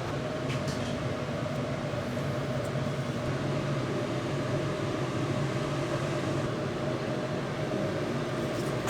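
Steady machine hum with a low tone and a higher tone held throughout, and a few faint clicks near the start.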